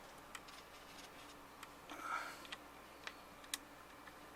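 Faint, scattered light clicks and taps of hands handling a wiring harness and its plastic connectors, with a brief scuff about two seconds in.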